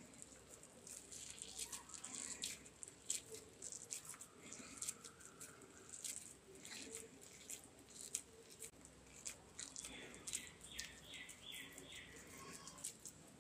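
Faint wet squishing and small clicks of hands squeezing soaked bread around a potato filling and pressing it into a ball. A quick run of about six short high squeaks comes about ten seconds in.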